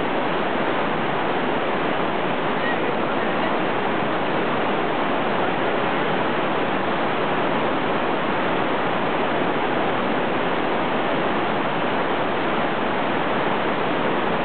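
Fast-flowing river rushing over shallow rapids: a steady, unbroken rush of water.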